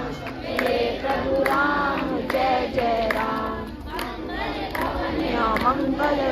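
A group of voices singing a devotional song together, with hand-clapping in time.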